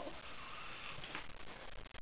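A sleeping man snoring faintly, a short noisy breath; he is still asleep.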